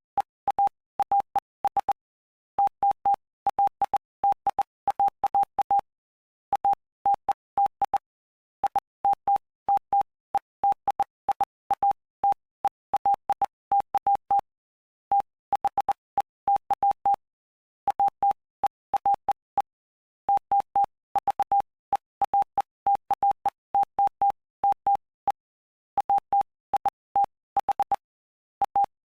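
Morse code keyed as a single steady tone of about 800 Hz, in short dots and longer dashes, with short gaps between letters and longer pauses between words. Each mark starts and stops with a faint click. It is spelling out the text of Mark chapter 5.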